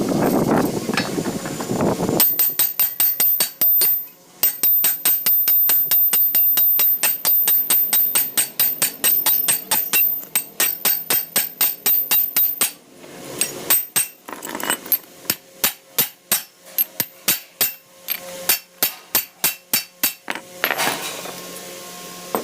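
Hammer striking metal in a fast, steady rhythm of about four to five blows a second with a bright metallic ring, slowing to about three blows a second for the last several seconds. The first two seconds hold a rough, noisy sound before the hammering starts.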